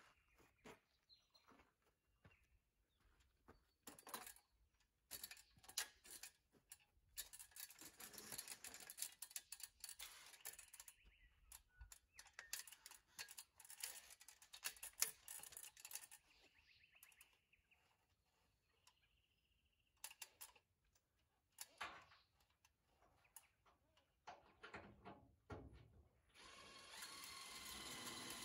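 Faint scattered knocks and clicks from hands-on work, then near the end a power drill starts running steadily.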